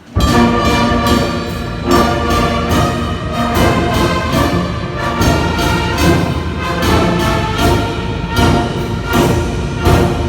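Brass band playing a hymn-like tune, with horns holding chords over drum beats that keep a steady pulse; the music comes in suddenly at the very start.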